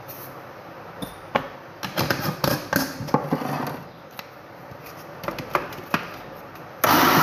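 A series of sharp clicks and knocks as the blender jar and lid are handled, then near the end an electric countertop blender's motor switches on suddenly and runs steadily, blending carrot cake batter of milk, egg, oil and sugar.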